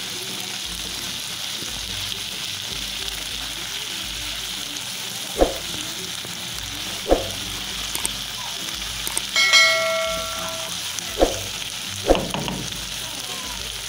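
Chicken and sofrito sizzling in a nonstick frying pan while being stirred with a spatula, with a few sharp knocks of the spatula against the pan. A steady electronic-sounding tone, the loudest sound here, rings for about a second past the middle.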